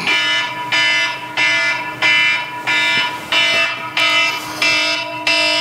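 Repeating electronic beep, about three every two seconds, each one starting sharply and fading before the next.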